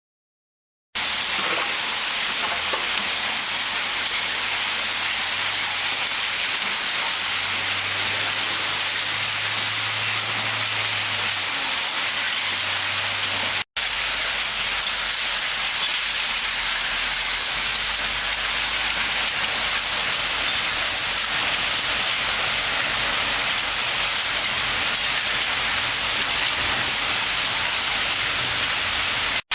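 Screening separator running, with loose material such as wood chips and soil showering through its screen in a steady rain-like hiss. It starts about a second in and cuts out for an instant about 14 s in.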